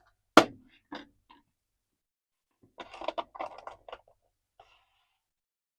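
Hard plastic toy horse figure knocking and clicking as it is handled and set down to stand. One sharp knock comes about half a second in, then a few faint clicks, and a short run of light clicking and rattling about three seconds in.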